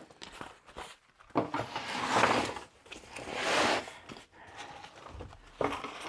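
Backpack and pouch fabric being handled: two rustling, scraping swishes about a second long each, with small clicks of buckles and straps, and a soft low bump near the end as the pack is tipped over.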